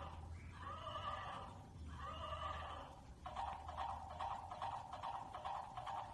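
Stuffed toy horse's built-in whinny sound: two short pitched calls, then a longer quavering stretch from about three seconds in, over a steady low hum.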